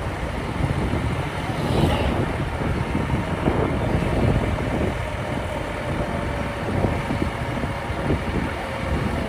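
A heavy diesel vehicle's engine running steadily, with wind buffeting the microphone.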